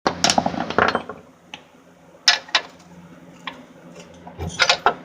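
Hammer striking a flathead screwdriver wedged in the steering knuckle's pinch slot, spreading the knuckle to free it from the lower ball joint. Sharp, irregular metal-on-metal clanks: a quick run of them at first, then single strikes and a last cluster near the end.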